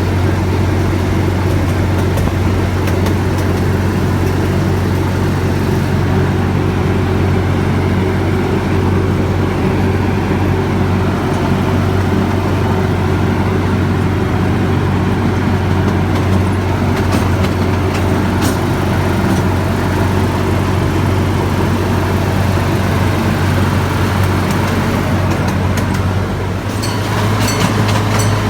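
A vehicle engine running with a steady low drone. Near the end the drone shifts slightly and a run of rapid clicks or rattles comes in.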